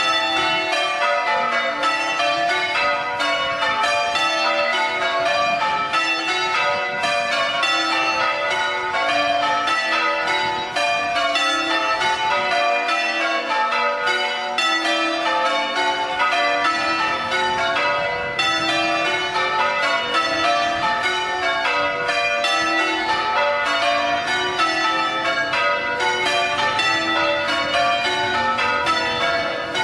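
Church tower bells in full-circle change ringing during a quarter peal: a steady, unbroken run of bell strikes, the bells sounding one after another in constantly shifting order.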